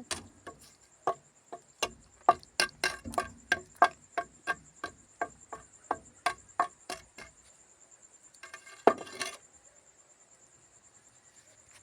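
A series of short sharp taps, roughly two or three a second for about seven seconds, as a brick is tapped down into cement mortar to bed it level. One louder knock with a short scrape comes about nine seconds in.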